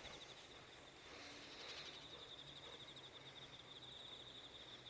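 Faint, steady insect trill, a rapid pulsing at one high pitch that does not stop, like a cricket singing.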